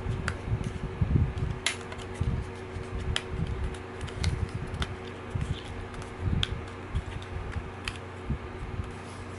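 Small sharp clicks and light knocks of plastic body panels being handled and pressed into place on a Sony DSC-HX50V compact camera, with low rumbling handling noise, over a steady hum.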